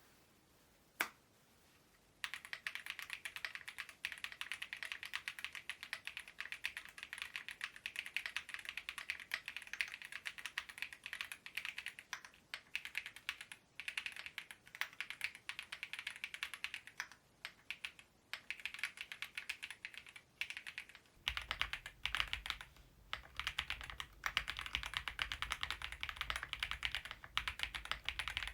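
Fast, continuous typing on an Epomaker EK75 mechanical keyboard, a dense stream of keystroke clacks. It starts with a single click about a second in, and the steady typing begins about two seconds in. A low background hum comes in about three quarters of the way through.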